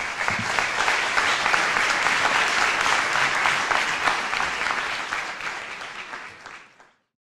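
Audience applauding, steady at first, then fading away near the end.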